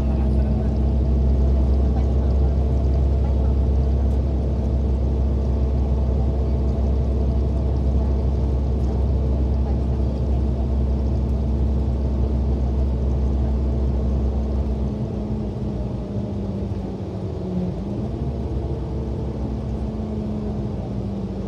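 City transit bus running, heard from inside the passenger cabin: a steady low drone with a few steady whining tones above it. The low drone drops away about fifteen seconds in while the tones carry on.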